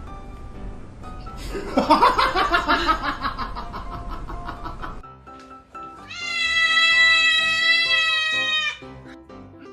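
A cat yowling with a wavering pitch, then giving one long drawn-out meow held at a steady pitch, over background music.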